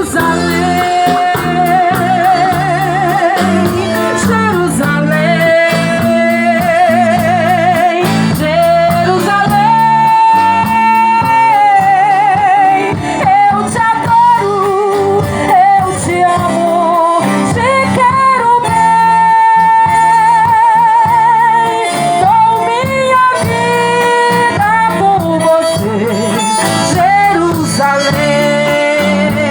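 Portuguese-language gospel band music: a wordless melody of long held notes with wide vibrato, over guitar and a steady bass line.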